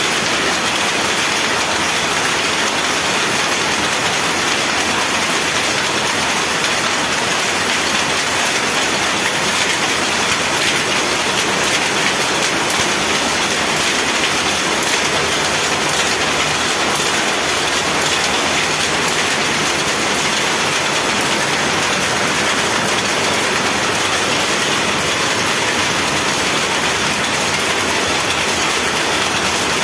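Power loom weaving at full speed: a loud, steady, rapid mechanical clatter that does not let up.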